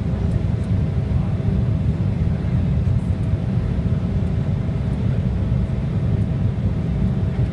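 Embraer 190 airliner in flight on its landing approach, heard as a steady, loud low rumble of its turbofan engines and airflow, with a faint steady tone above it.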